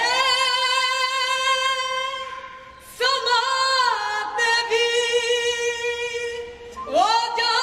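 Devotional song: a solo voice singing three long held notes, with a short break about three seconds in and a new note starting near the end.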